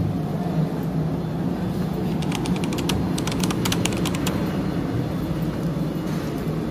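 Steady low hum of the ferry's machinery, with a rapid run of light clicks lasting about two seconds in the middle.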